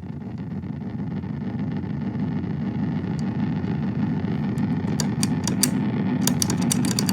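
Electro-Harmonix Deluxe Memory Man analog delay pedal with its feedback near self-oscillation, its repeats piling into a dense, rumbling wash that grows steadily louder. Several sharp clicks come in over the last two seconds.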